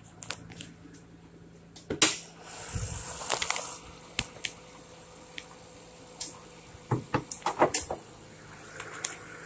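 The 1994 Nissan Skyline R33 GTS4's 2.5-litre RB25DE straight-six idling steadily, with a loud knock about two seconds in as its hood is lifted. About a second of hiss follows, then scattered clicks and rattles, with a cluster of them near the end, while the hood is propped open.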